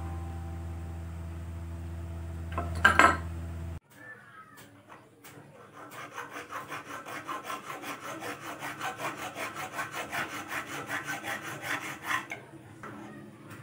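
Background music for the first few seconds, then a flat steel file rasping back and forth across a steel hex nut held in pliers, in quick, even strokes, shaping the nut into a dowel-cutting die.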